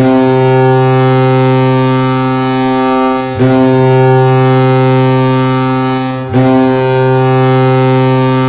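Colorado Avalanche arena goal horn blasting, signalling a goal scored: a loud, deep, steady horn tone sounded in three long blasts, about three seconds apart, with short breaks between.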